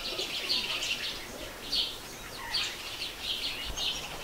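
Small birds chirping and singing in repeated short, high phrases.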